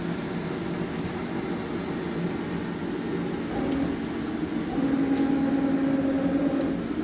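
ROMI C510 lathe running with a steady mechanical whine. About three and a half seconds in a steady tone comes in, and it grows louder about a second later before easing near the end.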